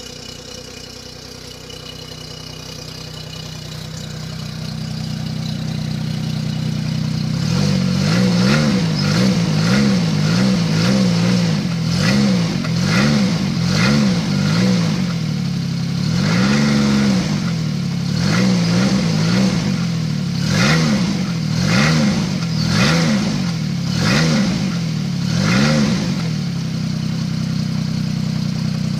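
Arctic Cat T660 snowmobile's Suzuki three-cylinder four-stroke engine idling, then from about seven seconds in revved in a string of quick throttle blips, one to two a second, before settling back to a steady idle near the end.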